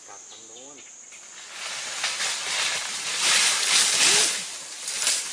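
Rushing, hissing noise of a wild elephant charging through dense brush and throwing up dust. It swells from about a second and a half in and is loudest around three to four seconds, with a brief call near four seconds.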